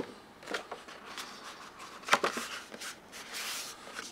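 Printed paper cards rustling and sliding against each other as they are handled: a few short crisp scrapes, and a longer papery swish about three and a half seconds in.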